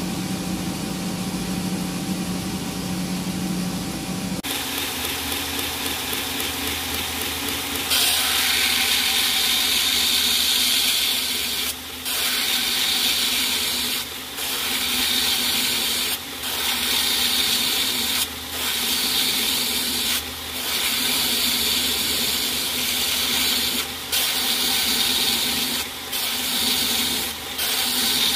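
Belt grinder running, with a titanium pocket clip pressed against the belt over a small wheel in repeated grinding passes of about two seconds each, a loud hiss broken by short pauses, starting about eight seconds in. Before that, a steady machine hum, then the belt running without contact.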